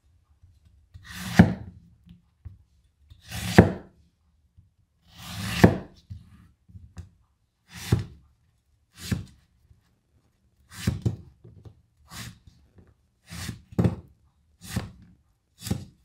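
A broad cleaver slicing through an orange and striking a wooden cutting board, eleven cuts in all. The first three are slow slices, each a swelling rasp through peel and flesh ending in a sharp knock on the board; the rest come shorter and quicker as the peel is cut into pieces.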